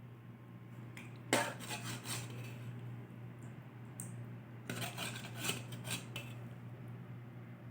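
A metal cooking utensil clanking and scraping against a pot, in two spells of clatter: a sharp clank a little over a second in with a second of scraping after it, then a longer spell of scraping near the middle.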